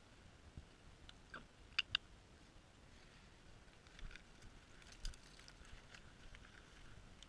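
Faint rustling in dry grass and twigs, broken by a few sharp snaps and clicks, the two loudest close together about two seconds in, as a Labrador grabs a stick in its mouth and walks on through the undergrowth.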